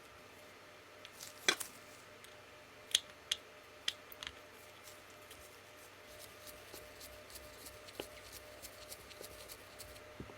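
Sharp metallic clicks and light taps of small metal parts being handled, several close together between about one and a half and four seconds in, then fainter scattered ticks, over a faint steady hum.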